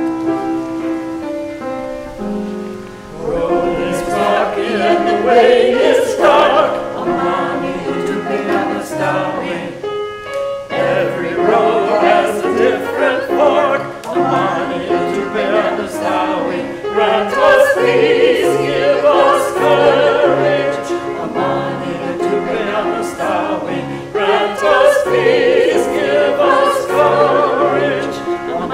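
A group of voices singing a church song together with piano accompaniment. The piano plays alone for the first few seconds, and the singing comes in about three seconds in, with a brief break near the middle.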